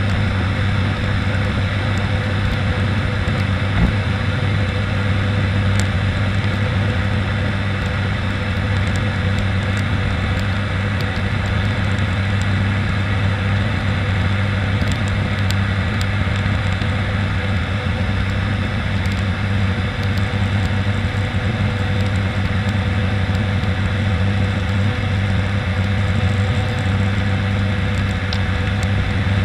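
Steady drone of an ATR 72-600's turboprop engines and propellers heard inside the cockpit in flight, a low, even hum over a rushing hiss of airflow. A single short knock about four seconds in.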